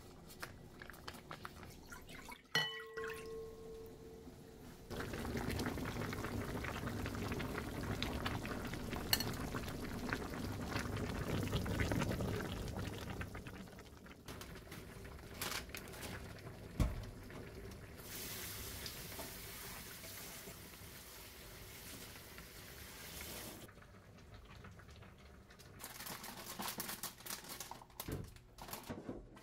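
Kitchen tap water running into a stainless steel sink while vegetables are rinsed in a strainer, in long rushing stretches. A sharp clink with a short ring comes near the start, and light clatter of handling comes near the end.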